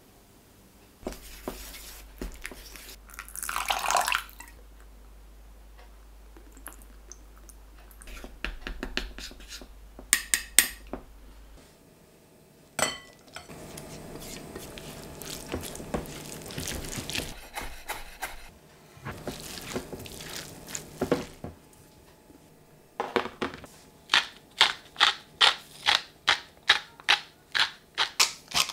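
Kitchen handling sounds: dressing being stirred in a small bowl, then a spatula scraping the dressing bowl and mixing cooked brown rice in a glass bowl. Near the end, a salt grinder is twisted in rhythmic grinding strokes, about two a second.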